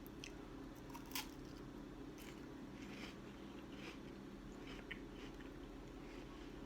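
A person biting into and chewing a crisp rolled wafer stick with chocolate cream filling: faint, scattered crunches, the sharpest about a second in.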